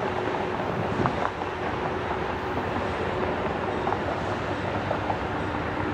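Approaching diesel freight locomotives: a steady rumble with a faint low engine drone that drops slightly in pitch about halfway through.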